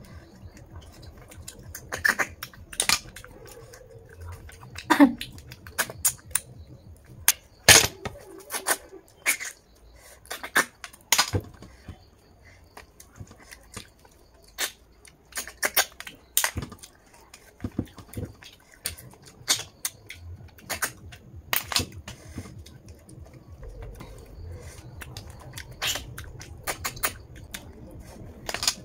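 Snails being sucked out of their shells by mouth: a string of short, sharp slurps at irregular intervals, one with a brief squeak about five seconds in.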